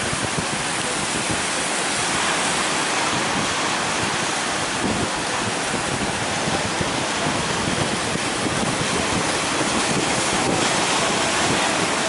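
Ocean surf breaking on the shore with a steady hiss, and wind buffeting the microphone.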